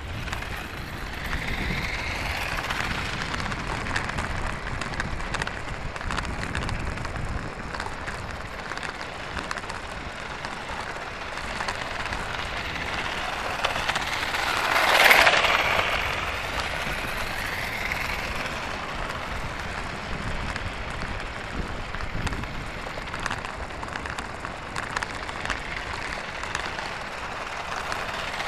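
RC-converted toy car's small electric motor and plastic wheels with a trailer, crackling over rough tarmac as it drives around. The sound swells to its loudest as the car passes close by about halfway through, then fades as it drives off.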